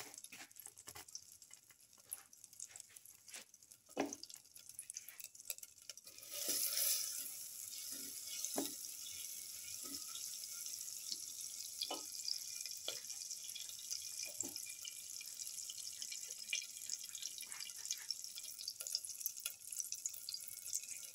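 Unsalted butter melting and foaming in a steel pan: scattered crackling pops at first, then a steady sizzle from about six seconds in. A spatula stirs and clicks against the pan now and then.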